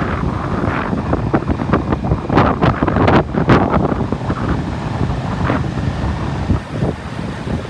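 Wind buffeting the microphone over the low rumble of motorbike traffic, heard from a motorbike riding through city streets, with gusts strongest around the middle.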